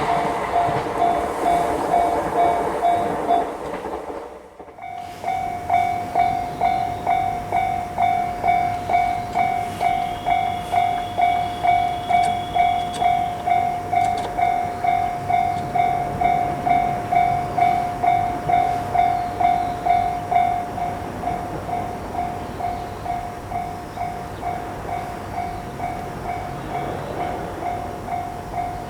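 Japanese railway level-crossing warning bell ringing steadily, about two clangs a second on one repeated tone. For the first few seconds a passing train's rumble of wheels on rails runs under it, cut off by a short break about four seconds in; after that the bell rings alone, a little softer in the last part.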